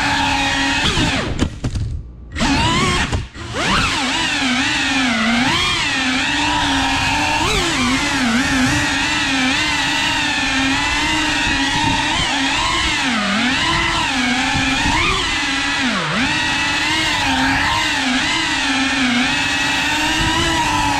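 Motors of a 3.5-inch cinewhoop FPV drone whining, the pitch wavering up and down with the throttle. About two seconds in the sound briefly drops away almost to nothing, twice, before the motors pick up again.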